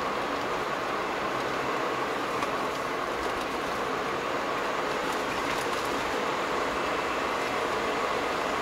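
Steady road noise inside a moving car's cabin: tyres running on wet asphalt, with the car's engine under it.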